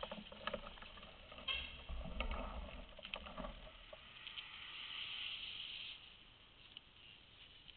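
Bicycles going past close by: scattered light mechanical clicks, then a steady high hiss for about two seconds that fades out about six seconds in.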